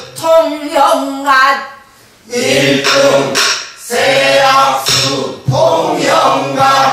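Pansori singing in a call-and-response lesson. A woman's voice sings a short phrase of a danga. After a brief pause about two seconds in, a group of adult learners sings the phrase back together in full voice.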